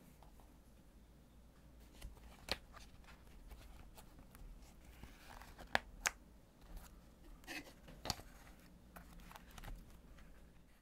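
Hands handling a leather-covered journal and a plastic binder clip: soft rustling and handling noise with a few sharp clicks and taps, the loudest a pair close together about six seconds in.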